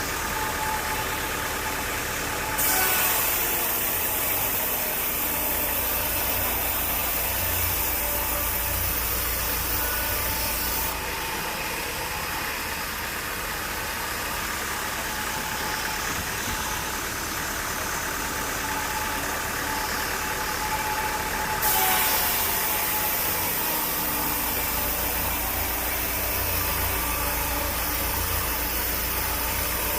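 Sawmill machinery running steadily. Twice, about three seconds in and again about twenty-two seconds in, a saw goes into the wood with a sudden harsh, high noise over a low rumble, and each cut lasts about eight seconds.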